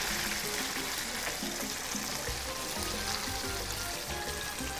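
Background music with short melodic notes and a bass line, over the steady sizzle of fish pieces deep-frying in a saucepan of hot oil.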